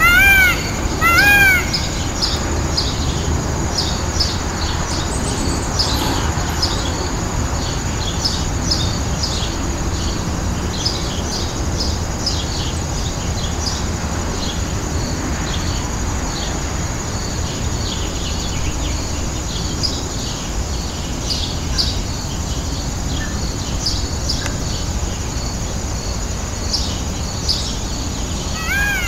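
Peacock calls: a run of loud, arched, repeated calls that stops about a second and a half in. After that, many short high chirps of small birds run over steady outdoor background noise.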